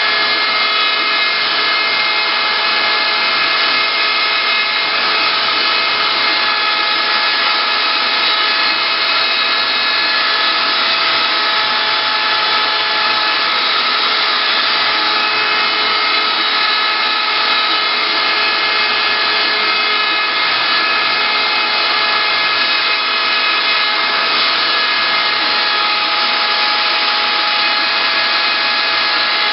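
CNC wood router's spindle running steadily as it carves, a constant whine of several held tones over a noisy hiss.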